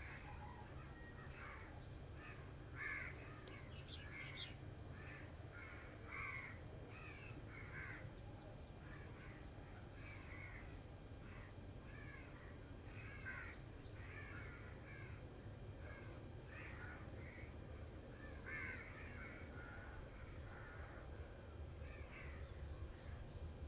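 Faint birds calling and chirping, many short calls scattered throughout, over a steady low background hum.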